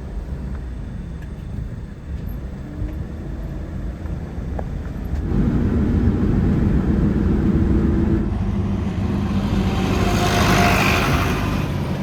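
Car driving, its engine and road noise rumbling steadily, growing louder about five seconds in, with a louder rushing swell near the end.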